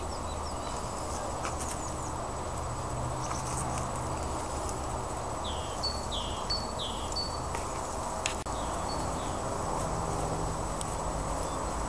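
Honeybees humming steadily from an open hive and the frames of bees being handled, with a small bird giving a few short falling chirps about halfway through.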